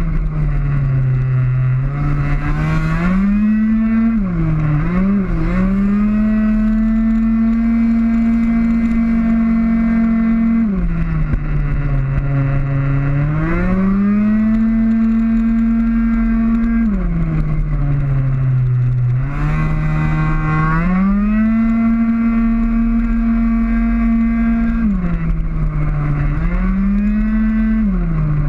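Tuned two-stroke racing scooter engine running flat out, heard from on board. It holds a steady high pitch on the straights, drops in pitch several times as the throttle comes off for corners, and climbs back up each time.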